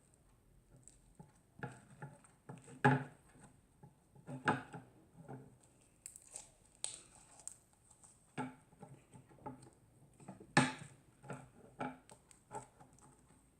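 Slime being kneaded and pressed by hand: irregular sticky clicks and smacks, the loudest about three seconds in and again about ten and a half seconds in.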